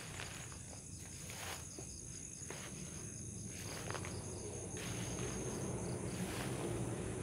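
Insects trilling in a steady high-pitched buzz, over a low rumble that grows louder toward the end, with a few faint clicks.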